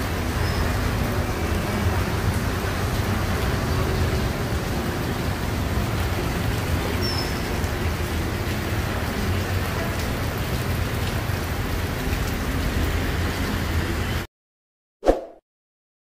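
Steady heavy rain on a wet city street with the low rumble of traffic, which cuts off suddenly near the end. Two short added sound effects follow in the silence as a subscribe-button animation comes up.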